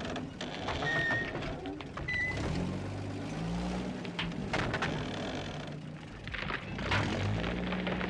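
Modified GMC M211 military cargo truck's engine labouring in low gear, its pitch rising and falling as it is revved, with scattered knocks and two short high squeaks about a second and two seconds in.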